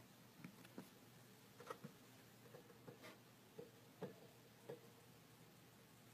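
About ten faint, irregular light clicks and taps from a dwarf hamster shifting about inside a plastic exercise wheel.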